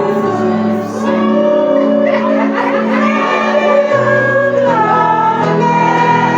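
Background music with singing: held vocal notes over sustained chords.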